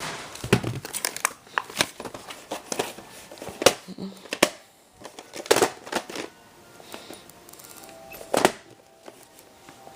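Handling noise from a VHS tape in its plastic case: irregular clicks, knocks and rustles, with the loudest knocks about half a second, three and a half and five and a half seconds in.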